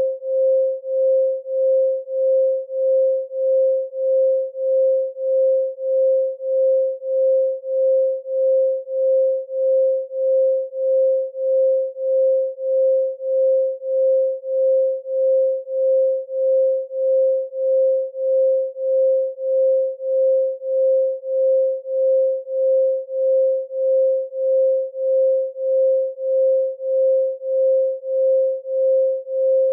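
A pure 528 Hz sine tone, pulsing smoothly up and down in loudness at an even rate, about one and a half pulses a second.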